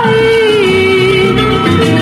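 Japanese anime opening theme song: over a full band accompaniment the sung melody holds one long note that sinks a little in pitch.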